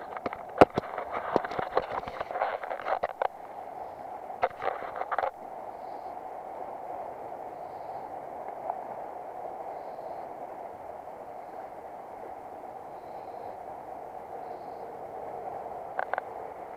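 Steady rush of a shallow river flowing over stones. Irregular clicks and knocks close to the microphone fill the first five seconds, with a couple more near the end.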